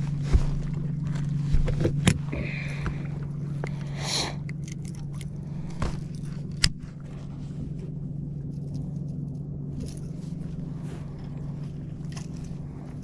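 Steady low electric hum of a bass boat's trolling motor, with a few sharp clicks and knocks from gear on the boat and a short hiss about four seconds in.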